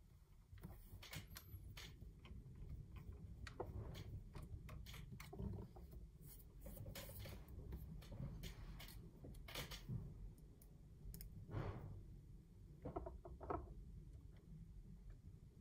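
Faint irregular clicks and light scrapes of a small screwdriver and fingers working screws into the plastic body of a DJI Mavic Air drone, with a quick cluster of clicks about three-quarters of the way through.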